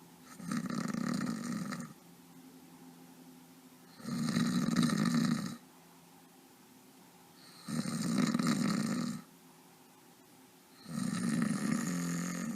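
A person snoring: four long snores of one to two seconds each, coming evenly about every three and a half seconds, with quiet breathing gaps between them.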